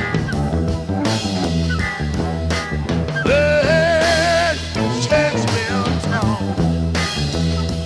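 Electric psychedelic blues band recording: electric guitars and drums over a repeating low riff, with one long wavering note held near the middle.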